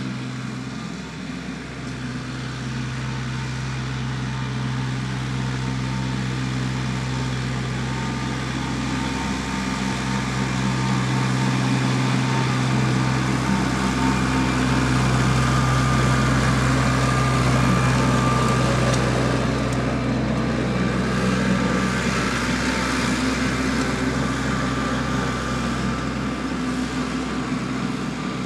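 Compact tractor engine running steadily as it drives across the arena, growing louder as it comes nearer in the middle and easing off slightly toward the end.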